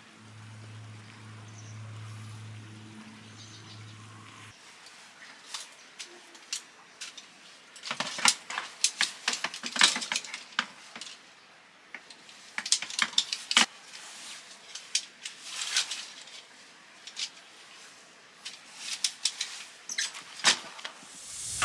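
A low steady hum that stops about four seconds in, then clusters of sharp clinks and clatters of small hard objects being handled.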